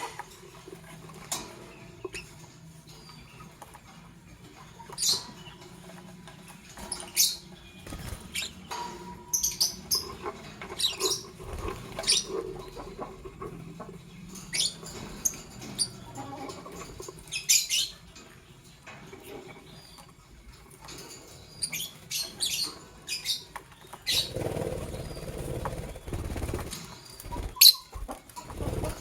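Lovebirds giving short, shrill chirps at irregular intervals, with a stretch of lower rustling noise about 24 seconds in.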